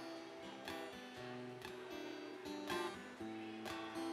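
Acoustic guitar strummed in a steady rhythm, its chords ringing on between strokes.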